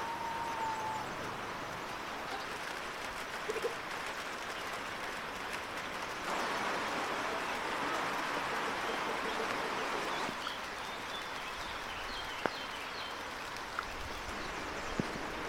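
Outdoor rural ambience: a steady noisy hiss, louder from about six to ten seconds in, with faint high bird chirps and a few sharp clicks near the end.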